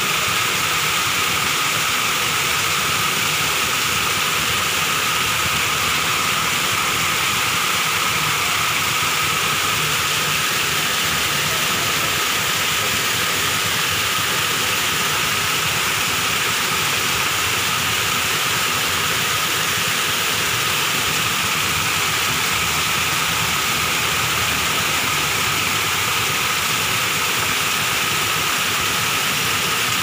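Small natural waterfall: falling water splashing with a steady, unbroken rush.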